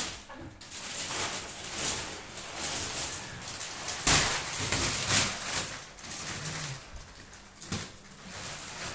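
Large sheet of clear plastic mattress wrapping rustling and crinkling as it is handled and pulled away from a newly unpacked spring mattress. The crackling comes in uneven bursts, loudest about four and five seconds in.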